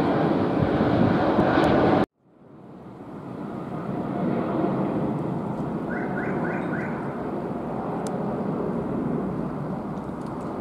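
Jet engine noise of a Boeing 777-200ER passing low overhead on landing approach with its gear down: a loud, steady wide rumble that cuts off abruptly about two seconds in, then fades back in as a quieter, steady drone while the jet flies away. Four quick chirps are heard about six seconds in.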